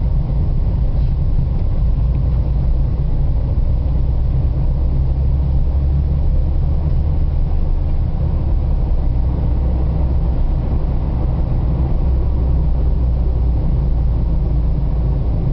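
Steady low rumble of a car driving on a paved road, heard from inside the cabin: engine and road noise.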